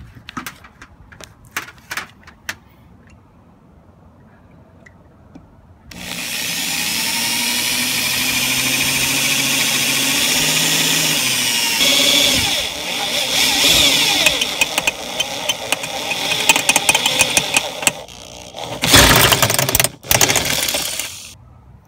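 Power drill running and boring holes through the sheet-metal cowl panel, starting about six seconds in with a steady motor whine that turns rough and uneven as the bit cuts into the metal. It stops briefly and runs again in a second short, loud burst near the end. A few light clicks come before the drill starts.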